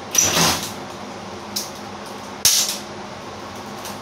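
Cordless impact driver run in short bursts, driving self-tapping screws into the truck's ceiling panel: a longer burst at the start, a brief one about a second and a half in, and another longer one about two and a half seconds in.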